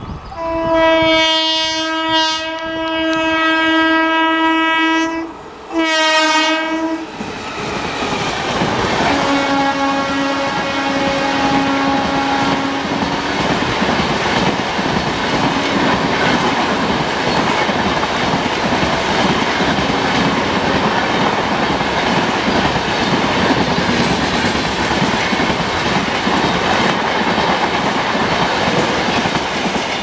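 WAP-4 electric locomotive's horn sounding a long blast and then a shorter one that drops in pitch as the locomotive passes, followed by a fainter, lower blast. The express's coaches then rush past with steady wheel clatter over the rail joints.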